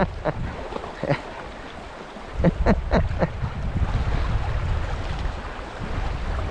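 Wind buffeting the microphone with a low, uneven rumble over the steady rush of a creek. About two and a half seconds in, a short run of chuckles.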